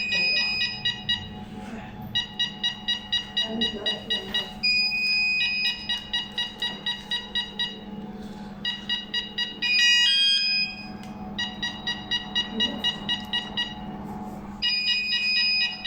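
Burglar alarm electronic siren sounding on an alarm-system training panel. It cycles between runs of quick high beeps, about four a second, and short held tones, over a steady low hum.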